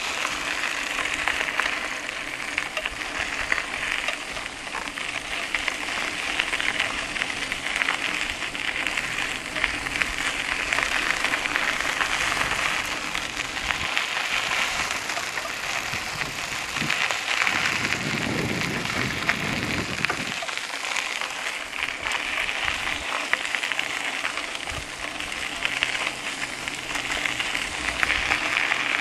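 Bicycle tyres rolling over a dirt and gravel road: a steady crackling crunch. A low rumble swells for about two seconds roughly two-thirds of the way through.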